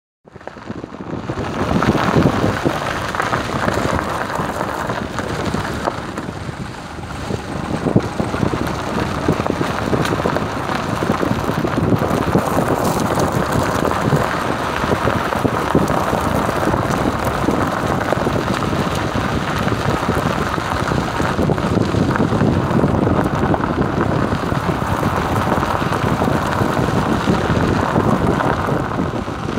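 Steady rush of wind over the microphone mixed with engine and tyre noise from a Maruti Suzuki Alto driving along a rough dirt forest track, heard from the car's side window. The sound fades in over the first two seconds.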